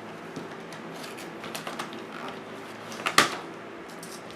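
Craft supplies being handled on a tabletop: small scattered taps and clicks, with one sharp double click about three seconds in.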